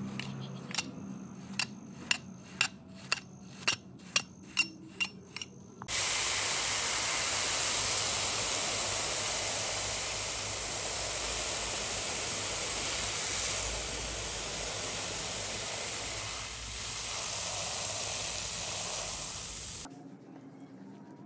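About ten sharp knocks, roughly two a second, then a steady hiss of water spraying onto a soapy rug for about fourteen seconds, cutting off suddenly near the end.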